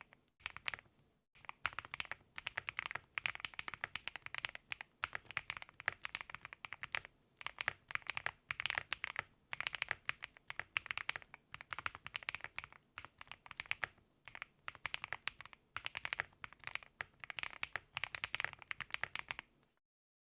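Fast typing on a gasket-mounted mechanical keyboard with a POM plate, factory-lubed Punkshoo Cream Soda/Summertime linear frankenswitches and PBT keycaps: rapid runs of keystrokes broken by short pauses between words. It stops shortly before the end.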